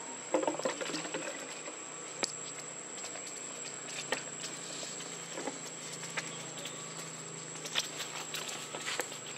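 Outdoor ambience: a steady high insect drone with scattered light clicks and rustles.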